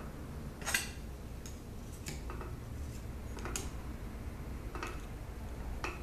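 Metal utensils clinking and tapping against a small container while stirring melted crayon and coconut oil lip gloss: about six sharp, separate clicks, the loudest about a second in.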